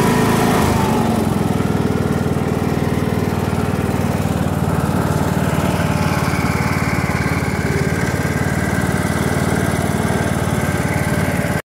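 Troy-Bilt Pony riding lawn tractor engine running steadily as the tractor is driven. The sound cuts off abruptly at the very end.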